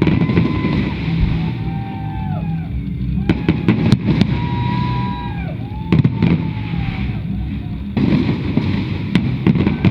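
Fireworks display: sharp bangs and crackles of bursting shells, in a cluster about three seconds in, again about six seconds in, and several more near the end, over a steady low rumble.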